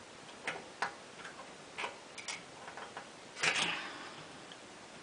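Scattered light clicks and knocks from small engine parts and hand tools being handled while a replacement carburetor is fitted, with a louder, longer clatter about three and a half seconds in.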